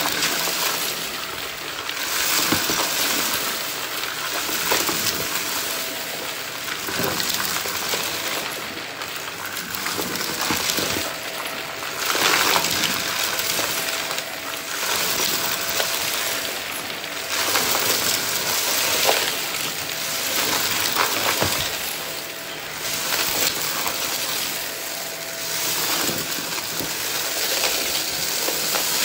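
Vacuum cleaner sucking up dry test debris, with a continuous crackle and rattle of bits going up the nozzle that swells and eases every couple of seconds as it passes back and forth.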